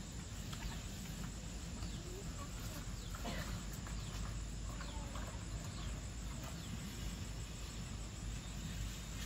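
Faint farmyard ambience: chickens clucking now and then, with other small bird calls over a steady background hiss.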